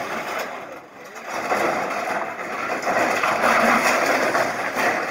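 Backhoe loader's diesel engine running as its arm tears at a corrugated-iron shack.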